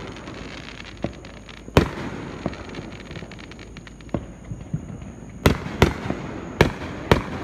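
Fireworks bursting: one loud bang about two seconds in and scattered smaller pops, then a quick run of bangs in the last two seconds.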